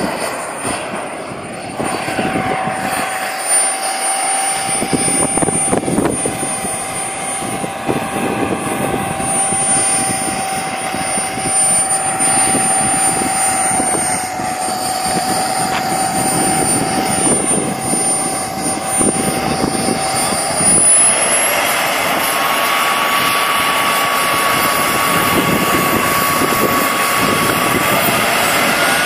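Small model jet turbine of a Falcon 120 RC jet, a Kingtech K-80, running with a steady high whine as the jet takes off and flies away. About two-thirds through, the whine steps up in pitch, then rises again near the end.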